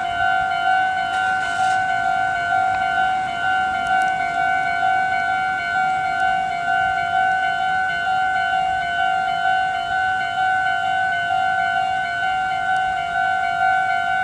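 Japanese railway level-crossing warning bell ringing, an electronic ding repeating evenly about one and a half times a second, signalling that a train is approaching.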